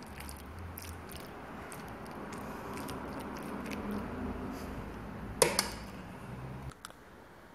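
Béchamel-coated macaroni being spooned into a glass baking dish: soft wet squishing of the sauced pasta, with one sharp clink of the spoon on the dish about five and a half seconds in. A low steady hum underneath cuts off near the end.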